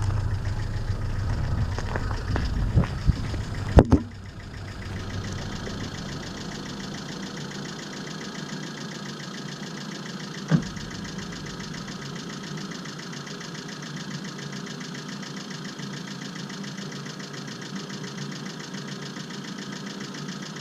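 Brushless motors of an FPV racing quadcopter (EMAX RS2205 2300kv on TBS Bulletproof 25A ESCs running DShot 600) running, with a strange sound the owner cannot account for after the ESC and Betaflight change. A few sharp knocks come about three to four seconds in, then the sound settles into a steadier run, with one more short knock near the middle.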